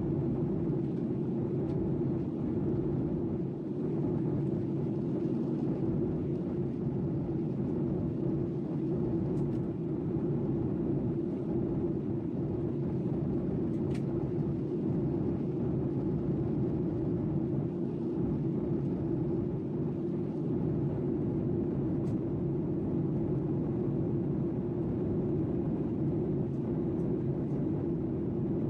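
A steady low rumbling drone with no beat or voice in it, like a vehicle or engine heard from close by.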